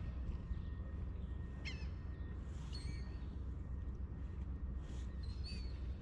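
A few short bird calls, one a little under two seconds in, one near the middle and one near the end, over a steady low background rumble.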